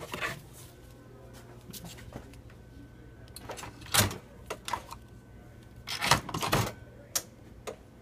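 Keurig single-cup coffee brewer being handled. There is a rustle of the pod box at the very start, a sharp plastic click as the brewer's handle and lid are lifted about four seconds in, and a cluster of clicks and clunks a couple of seconds later as the lid is brought back down and shut. A faint steady hum runs underneath.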